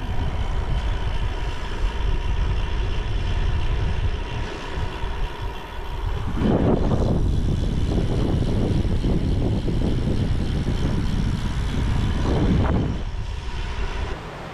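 Rumbling ride noise of a bicycle rolling along a gravel road, with wind buffeting the microphone. It grows louder and rougher about halfway through for some six seconds, then eases near the end.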